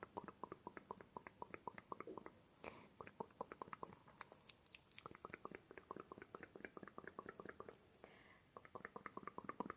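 Close-miked ASMR mouth sounds: a quick, even run of small tongue and lip clicks, about eight a second, pausing briefly twice.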